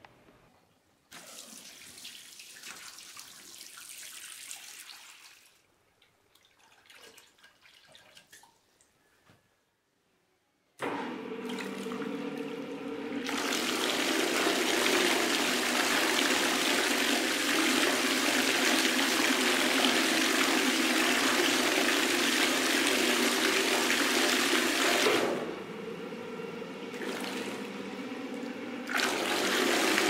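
Homemade 24 V washing machine running: its motor-driven pulsator churns water in the plastic tub, a steady rushing swirl with a low motor hum that starts about a third of the way in. Near the end it drops off for a few seconds, then starts again, the machine pausing in its automatic wash cycle. Earlier, softer water sounds come from the tub being filled.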